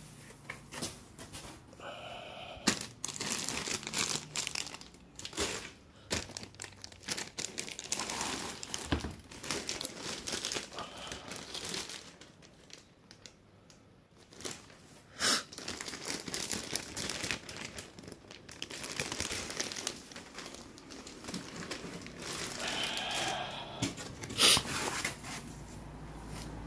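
Plastic wrapping and foam packing sheets rustling and crinkling as boxed gaming-chair parts are handled inside a cardboard carton. It comes and goes irregularly, with a few sharp taps and a short lull about halfway through.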